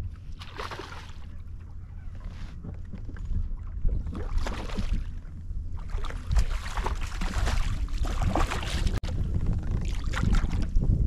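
Hooked largemouth bass splashing at the surface beside a kayak in repeated bursts, longest and loudest in the second half, over a steady low wind rumble on the microphone.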